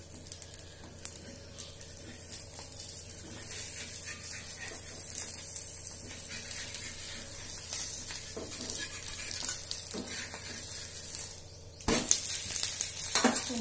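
Fresh-corn dosa sizzling on a hot dosa griddle, with a metal spatula scraping at it; about twelve seconds in there is a sharp knock and louder scraping as the dosa is flipped.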